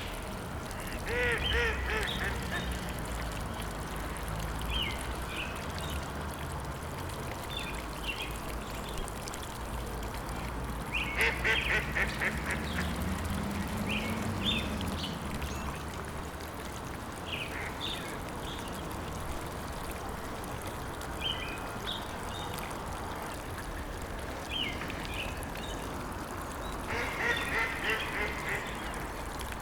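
Ducks quacking in three quick runs of calls, with scattered short bird chirps over a steady background hiss.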